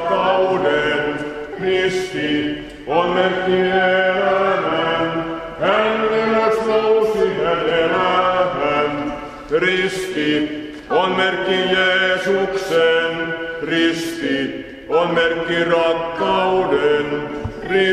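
A group of young people singing a Finnish Easter song together in a church, in phrases with short breaths between them.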